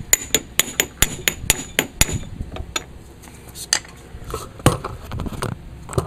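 Sharp metallic taps of a hammer driving a long bellows-sleeve installer tool into a MerCruiser Bravo III bell housing: a quick run of about nine ringing taps in the first two seconds, then a few spaced blows, one harder knock near the end.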